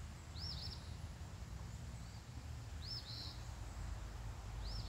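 A bird calling three times, each call a short high note that rises and falls, the first one doubled. Under it runs a steady low rumble of outdoor background noise.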